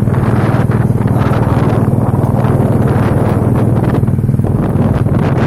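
Engine of a moving vehicle running at a steady speed, a constant low hum, with wind rushing over the microphone.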